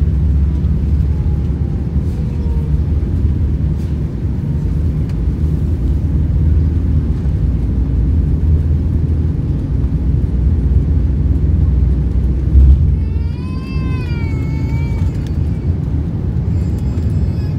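Low, steady rumble of an Airbus A380's engines and runway roll, heard inside the cabin during the takeoff run. About two-thirds of the way through there is a short thump, followed by a high, wavering cry lasting about two seconds.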